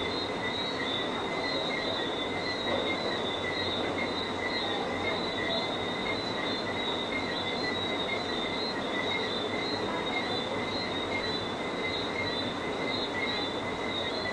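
Steady night-time chorus of small calling animals: a high shrill at two pitches, pulsing slightly, over a constant background hiss.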